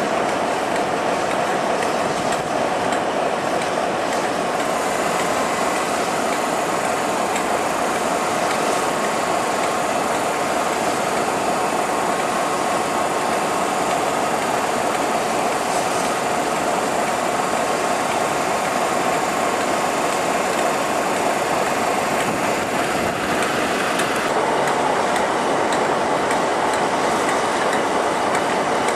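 Diesel-hauled train, a Class 47 locomotive hauling Class 52 Western D1009, moving slowly past: a steady diesel engine drone mixed with wheel and rail noise. The sound shifts slightly near the end.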